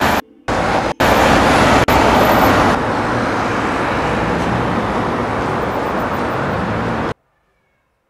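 Loud rushing noise of a road vehicle passing close by. It comes in two short chopped bursts at the start, runs continuously from about a second in, and cuts off abruptly about seven seconds in.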